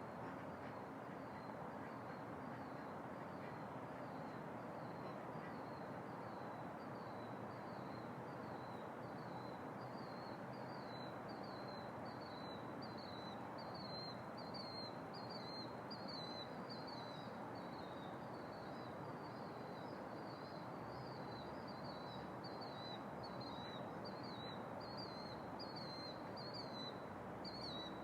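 Unidentified night-calling animal giving a short, high-pitched double call over and over, about one and a half calls a second, growing louder about a third of the way in, over a steady background hiss.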